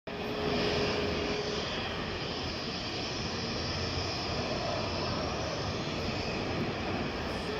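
Jet airliner engines running at taxi power: a steady rushing noise, with a faint steady whine in the first second and a half.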